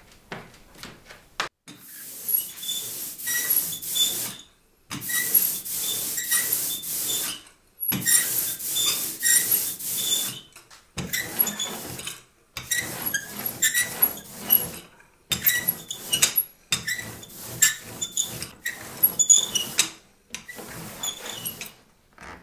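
Tacky black linocut printing ink being worked across a smooth surface in about ten strokes of a second or two each, with short pauses between; each stroke is a sticky hiss with small squeaks.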